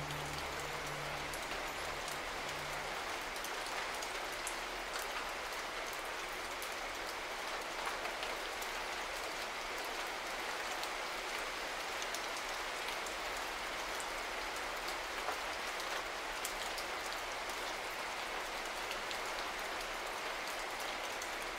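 Steady falling water like a rain shower: an even hiss with scattered droplet ticks. A low hum fades out in the first few seconds.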